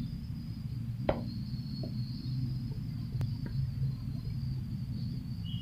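Room tone: a low steady rumble with a faint high whine and a couple of faint clicks.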